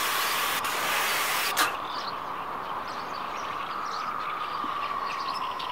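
Logo-reveal sound effect: a loud noisy whoosh ending in a sharp click about a second and a half in, followed by a steady high tone with faint scattered blips.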